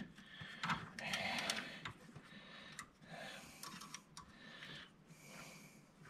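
Faint rustling and scattered light clicks of spark plug wires and rubber hoses being handled and pushed around in an engine bay.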